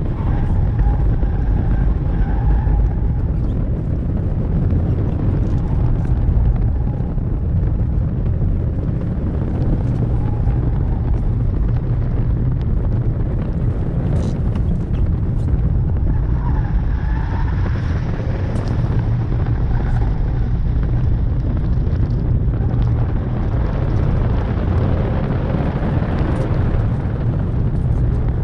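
Inside the cabin of a Honda Accord with the 2.0-litre turbo engine on a fast lap of a wet track: a steady deep rumble of road and tyre noise, with the engine note faintly rising and falling as the car accelerates and slows through the corners.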